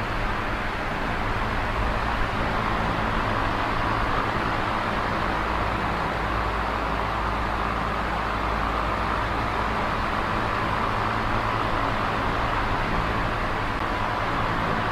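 Small electric oscillating fan running steadily: a whoosh of moving air over a low motor hum, the air noise swelling slightly in the middle.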